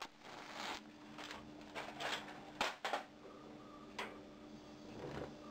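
Faint scrapes and a few sharp clicks as a match is struck and held to a gas stove burner to light it, over a low steady hum.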